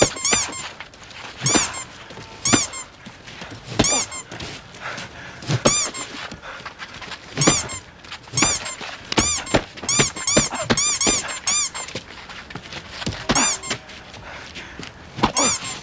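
Short high-pitched squeaks like a rubber squeaky toy, dubbed in as comic sound effects. About a dozen and a half go off at uneven intervals, with a quick run of them about nine to twelve seconds in.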